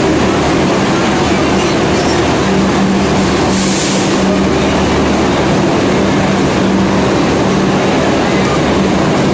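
LHB passenger coaches rolling past along a station platform: a steady rumble of wheels and running gear with a humming tone that fades in and out. A short hiss comes about three and a half seconds in.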